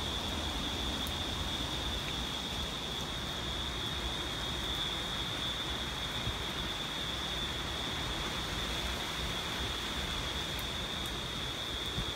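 Hurricane-force wind and rain, a steady rushing noise with wind buffeting the microphone, over a steady high-pitched whine.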